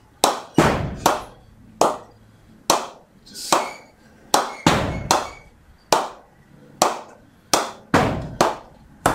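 A leather Dukes cricket ball bouncing again and again on the face of a TON Simo 54 willow cricket bat. There are about a dozen sharp knocks, each less than a second apart.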